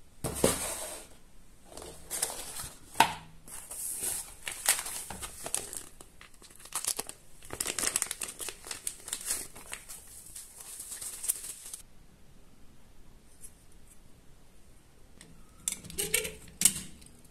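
Packaging being torn and crinkled, in irregular rustling strokes for about twelve seconds, then quieter with a few more brief rustles near the end.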